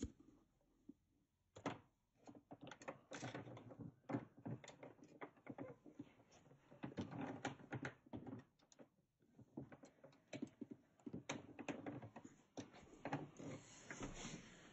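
Irregular clicks, knocks and rustling from an upright vacuum cleaner being pushed and handled over carpet; no motor sound is heard.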